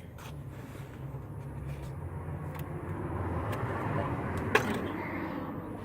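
A road vehicle going by, its noise swelling and then fading over a steady low hum, with one sharp click about four and a half seconds in.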